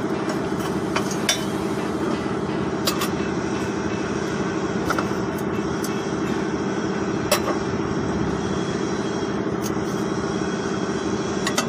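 A steady mechanical hum, like a diesel engine running nearby, with a few sharp metallic clicks of hand tools on metal every couple of seconds.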